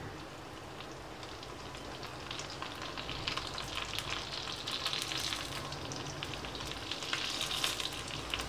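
Hot oil sizzling and crackling as ready-made puris deep-fry in a kadai, growing louder about two seconds in.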